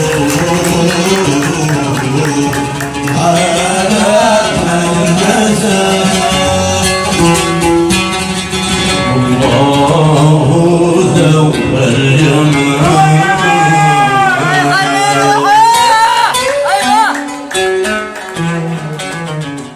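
Yemeni song music led by a plucked string instrument, with melodic runs, dying away near the end.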